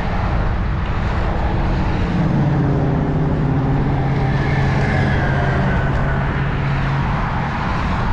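Road traffic: a car's engine passes close by, its note holding and then falling slightly from about two to seven seconds in, over steady road rumble.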